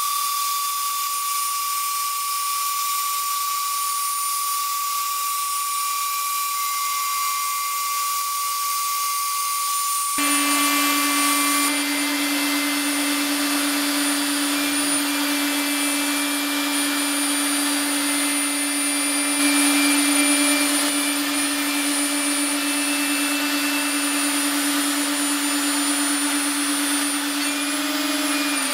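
CNC router spindle cutting 2 mm FR4 fibreglass (GFK) sheet with a 2 mm diamond-cut cutter at about 20,000 rpm, with dust extraction running: a steady high whine over hiss. About ten seconds in, a lower steady hum sets in and the noise grows louder, and the high whine stops a second or so later. Right at the end the pitches start to drop.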